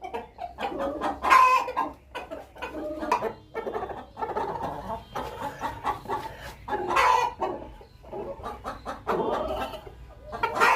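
A hen clucking and calling over and over in a strange, drawn-out way, the pre-laying call a hen makes before going to lay an egg. The loudest calls come about a second in, around seven seconds in, and near the end.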